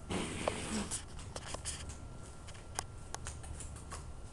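A brief vocal sound in the first second, followed by scattered light clicks and rustling as something is handled close by.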